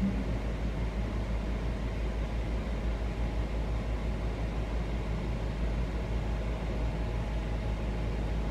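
Steady low rumble with a faint, even hum over it, unchanging throughout.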